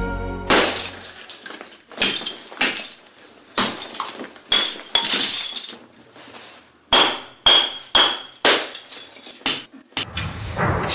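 Green glass bottles being smashed onto a heap of broken glass: about a dozen separate sharp crashes of breaking glass, several with a brief high ring after the strike.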